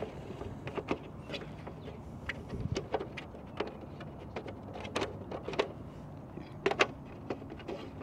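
Irregular light clicks and taps of metal bolts being started by hand into the back of a carbon-fibre satellite dish reflector, about one a second, with a louder pair near the end.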